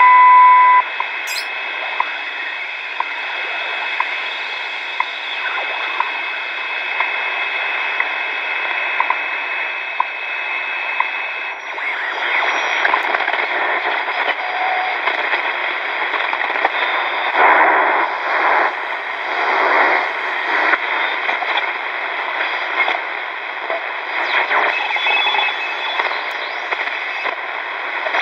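Static and hiss from the speaker of a 1970 Hitachi Hi-Phonic WH-888R portable AM/shortwave radio as it is tuned, with no clear station. There is a brief steady beep at the very start, and about twelve seconds in the noise grows louder and more uneven.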